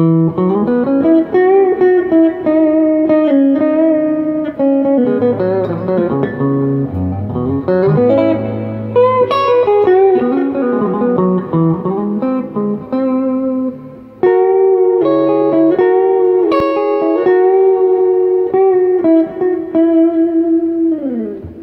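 Eastwood Airline '59 reissue electric guitar with humbuckers played through a Yamaha Stagepas 600i PA system with its built-in reverb on: picked notes and chords, ending on a held note that slides down in pitch.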